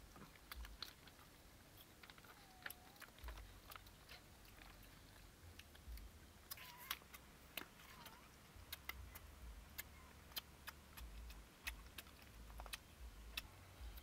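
Faint eating sounds: scattered sharp clicks and smacks of chewing, with a few short squeaky calls about a third and half way through.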